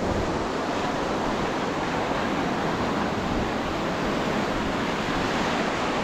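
Ocean surf washing onto a beach, a steady, even wash of noise.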